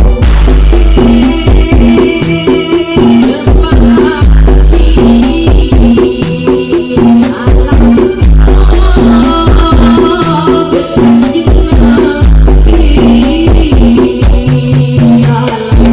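Very loud DJ dance music played through a large carnival sound system during a sound check, with a steady beat, heavy deep bass and dense high percussion.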